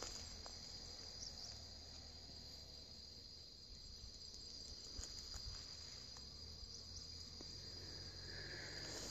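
Faint, steady high-pitched chorus of insects chirring in overgrown vegetation, an unbroken whine that holds one pitch.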